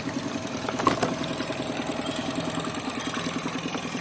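A small engine idling steadily with a fast, even pulse. A sharp click comes a little under a second in.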